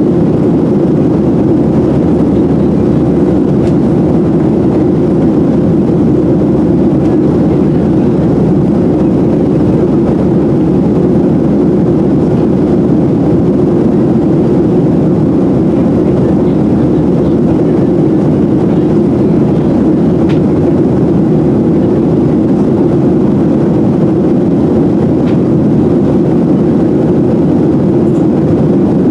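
Steady cabin noise inside a Boeing 737-700: the even, unchanging low rumble of its twin CFM56-7B jet engines and airflow past the fuselage, heard from a window seat.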